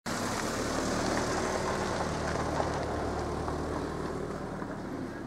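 Steady outdoor background noise with an even low hum underneath, easing off slightly toward the end.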